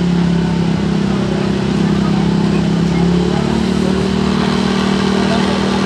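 A motor vehicle engine running steadily, its hum stepping up slightly in pitch about three seconds in.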